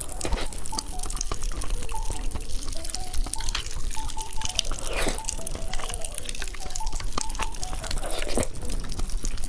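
Popping candy crackling, a dense irregular patter of tiny pops and snaps.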